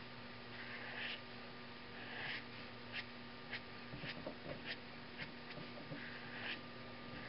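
Sharpie marker tip scratching across paper in quick short strokes, with a few longer drawn lines, over a steady low hum.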